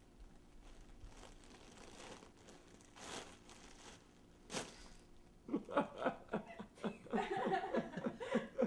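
A few soft rustles, then, from about halfway in, a man laughing in a quick run of short bursts, several a second.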